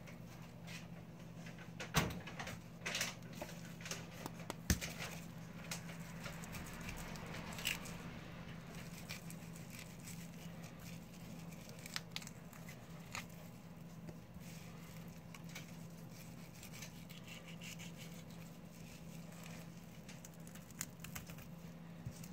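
Knife cutting and scraping through a bluefin tuna collar on a cutting board, with two sharp knocks of the blade on the board about two and five seconds in and scattered soft clicks of handling, over a steady low hum.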